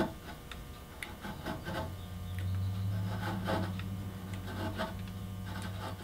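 A flat gouge pared by hand into wood, making a series of short scraping strokes as it shaves the broken ear stump of a carved wooden horse head flat. A steady low hum runs under the strokes from about two seconds in.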